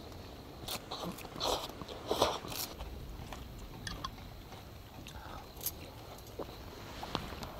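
Close-up eating and table sounds: a few crunchy bites and chewing in a cluster during the first half, then scattered light clicks of a ladle and chopsticks against the pot and bowls.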